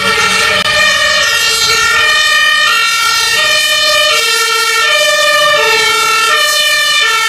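Electronic two-tone fire engine siren sounding, stepping back and forth between a lower and a higher pitch, each held for under a second; it starts abruptly.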